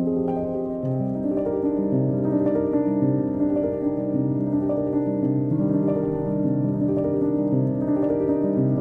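Background music: a slow piano tune with held notes, a new note sounding about every half second.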